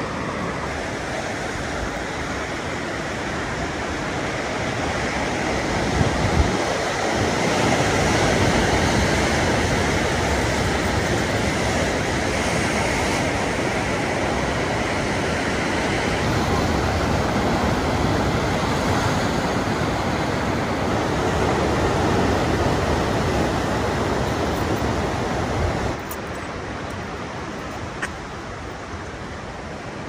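Ocean surf breaking on a rocky shore below, a steady rushing wash. It swells about a quarter of the way in and drops abruptly near the end.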